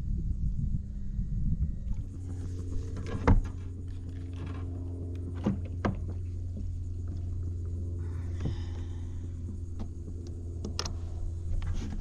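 A steady motor hum starts about two seconds in and runs on, over an earlier low rumble. A few sharp knocks of handling on the kayak are heard over it.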